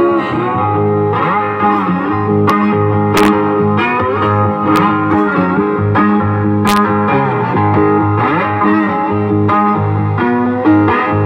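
Hollow-body electric guitar playing an instrumental passage: picked notes that bend in pitch over a low bass note that keeps repeating.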